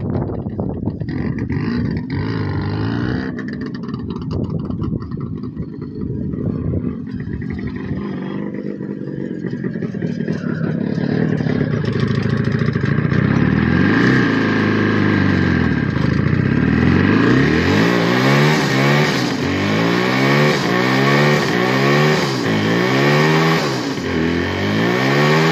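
Jawa 350 two-stroke twin motorcycle engine running as the bike moves off, then revved in repeated quick blips while standing, about once a second in the second half.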